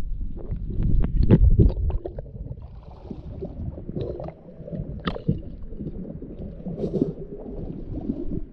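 Muffled underwater rumble and sharp clicks heard through a diving camera, then water sloshing against a boat's hull with scattered knocks and clunks as the diver comes out of the water at the stern ladder.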